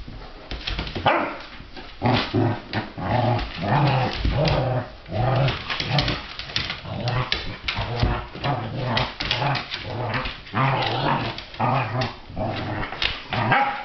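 Two dogs play-fighting, a Bernese Mountain Dog puppy and a larger dog, trading growls and short barks in quick succession.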